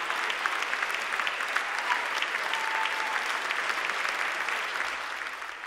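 Audience applauding: steady clapping that begins to fade out near the end.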